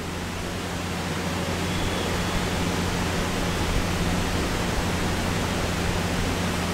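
Steady hiss with a low hum underneath, getting slightly louder over the first two seconds; no distinct event stands out.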